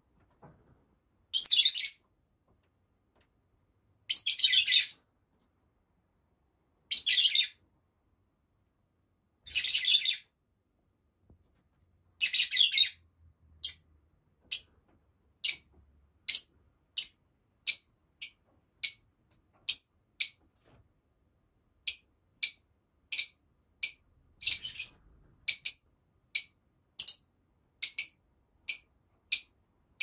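Lovebirds calling in high-pitched voices. For the first half, second-long bursts of busy chatter come every two to three seconds. From about halfway, short, sharp chirps repeat about twice a second.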